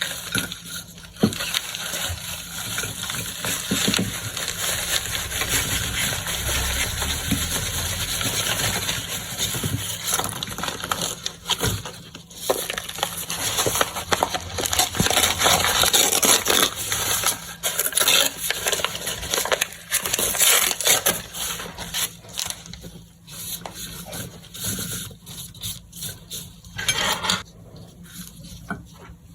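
Crackling, crinkling handling sounds of microwaved chunks being unwrapped, full of small sharp clicks and ticks. They thin out and grow quieter over the last several seconds.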